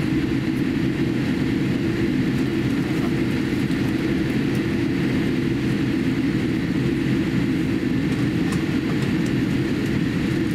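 Cabin noise inside a Boeing 787-8 airliner taxiing after landing: a steady low rumble of the engines and cabin air, with no change in level.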